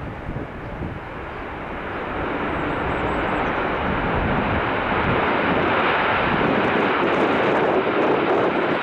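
Jet airliner's engines, a steady rush growing louder as the aircraft approaches.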